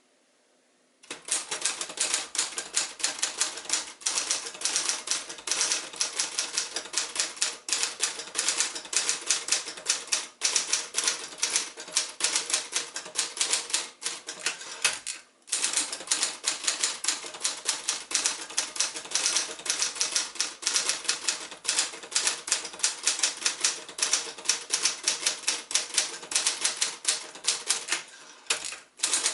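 1977 Royal Champion L manual portable typewriter, an Adler J5 under a Royal badge, being typed on: a fast, steady run of key strikes starting about a second in, with a brief pause about halfway through.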